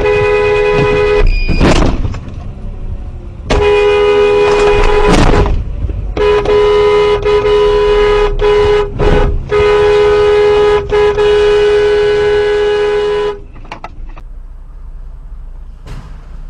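Car horn with two tones sounding in long, sustained blasts, about six in a row with short breaks, plus a couple of short noisy rushes between the first blasts. The honking stops about 13 seconds in, leaving much quieter road noise.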